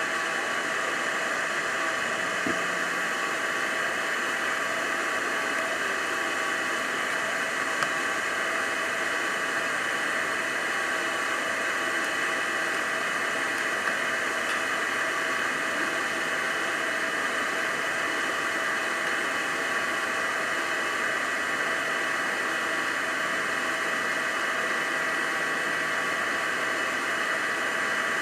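Steady, even background hiss with a couple of faint clicks.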